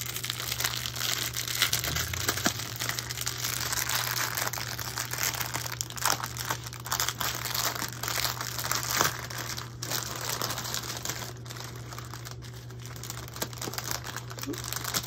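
Clear plastic bag of packed diamond painting drills crinkling and crackling irregularly as it is handled and opened.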